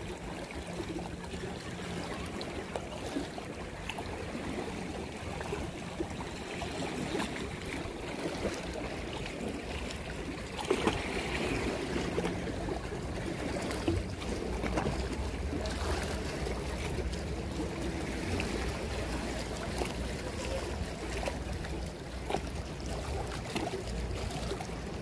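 Shallow seawater lapping and sloshing, with a low steady rumble underneath.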